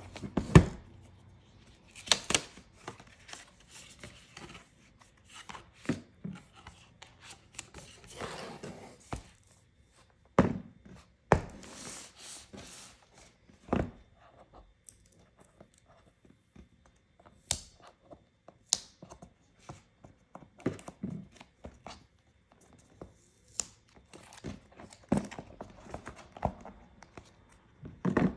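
Cardboard and paper packaging of an Apple Watch being handled and opened: a series of knocks and taps, with tearing and rustling of paper about a third of the way in.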